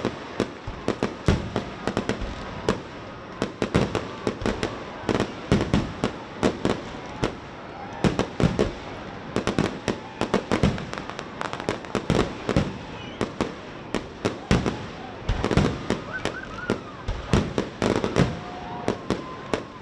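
Fireworks display: a rapid, irregular barrage of sharp bangs and crackles, several a second, sustained throughout.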